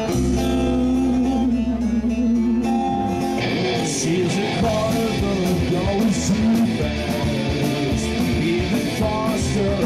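Live rock band playing, guitars prominent: held chords at first, then a singer's voice comes in over the band about three and a half seconds in.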